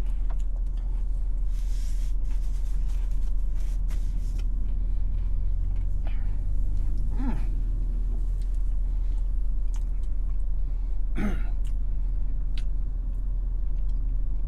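A man biting into and chewing a fried chicken sandwich with scattered small mouth clicks. A steady low rumble runs under it inside the car cabin.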